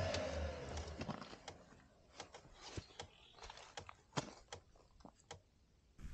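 Background music fading out, then faint, irregular clicks and ticks, a few each second.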